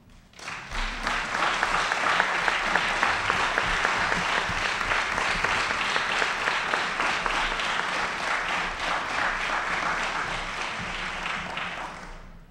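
Audience applauding steadily, tapering off and stopping near the end.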